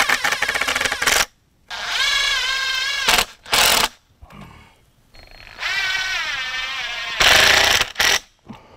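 Cordless impact driver driving screws into pine boards in several short bursts. A whining motor shifts in pitch, and near the end it breaks into a fast rattling hammer as a screw seats.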